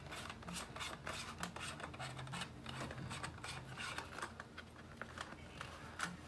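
Cardboard rubbing and scraping as a gauge and its cardboard insert are worked out of a cardboard box by hand: a run of short, irregular scratchy rustles.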